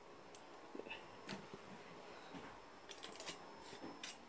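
Faint, scattered clicks and crinkles of aluminium foil being handled, a few at a time with gaps between.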